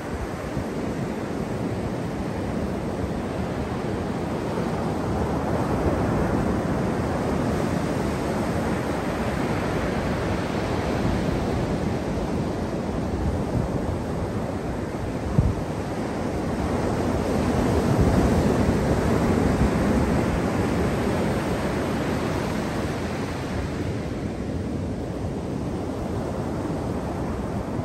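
Atlantic surf breaking and washing up a sandy beach, a continuous rush of waves that swells louder toward the middle and eases off near the end.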